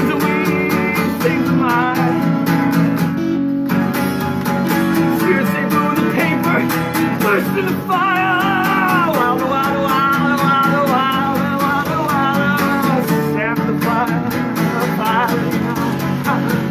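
Acoustic guitar strummed in a steady, quick rhythm, with a wavering melody line over the chords.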